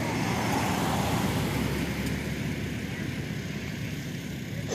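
Radio-controlled model helicopter in flight, its rotor and motor running steadily and slowly getting fainter.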